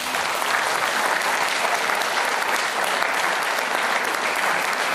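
Audience applause from many hands, breaking out all at once and holding steady.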